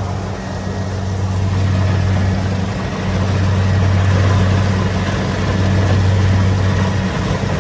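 Rice combine harvester's diesel engine running steadily under load: a deep, even hum with the dense noise of the machine's working parts over it.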